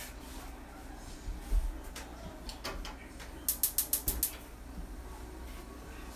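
Gas range's spark igniter clicking, about seven quick clicks in under a second, as the burner knob is turned to light the burner under the skillet. A dull thump comes a couple of seconds earlier.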